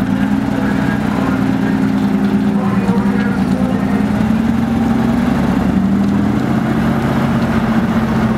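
Diesel engine of a vintage eight-wheel lorry running steadily as the lorry moves slowly past and away, its low note wavering only slightly.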